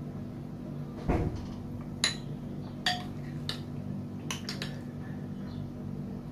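A metal spoon clinks against glassware several times, sharp and short, as set custard is scooped from a glass bowl into small glass cups. The first clink, about a second in, comes with a dull thud. A steady low hum runs underneath.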